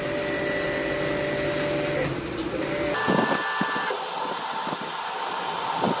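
Steady hum and hiss of machinery with a few even whining tones, typical of a car engine running with its air conditioning on during service; the sound changes abruptly about halfway through, turning thinner with higher tones.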